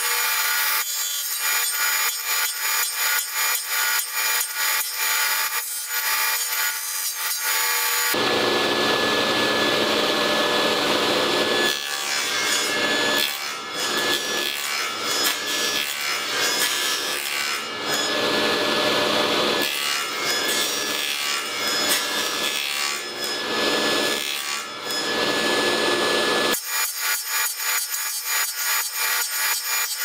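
Table saw cutting a series of shallow 3/8-inch-deep passes into a 3/4-inch pine strip, nibbling out the notch of a beehive entrance reducer. The cutting noise turns fuller and heavier from about 8 seconds in until near the end.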